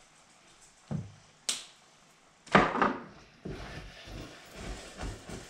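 Cooking sounds at a stove: a knock and a sharp click, then a loud clatter about two and a half seconds in, followed by a utensil stirring and scraping in a frying pan at about two strokes a second.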